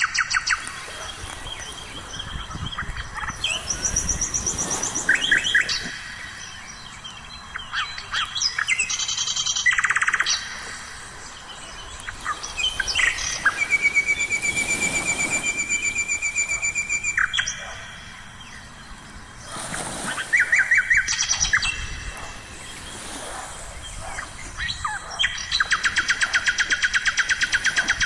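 Birds singing: fast, rapidly pulsed trills alternating with shorter chirps, and one long steady whistle near the middle.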